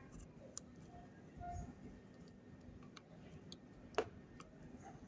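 Faint small ticks and clicks of a soldering iron tip working a solder joint on a circuit board, with one sharper click about four seconds in as the iron is moved off the board.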